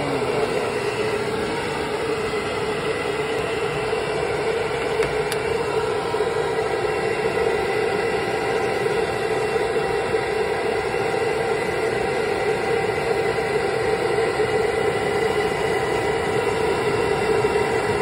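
Pet grooming dryer blowing steadily: a constant rush of air over an unchanging motor hum.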